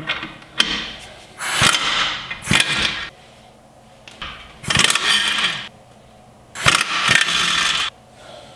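Ingersoll Rand 2235 air impact wrench running in three bursts of about a second each, with a few short blips before them, as it loosens the three lower ball joint bolts under the steering knuckle.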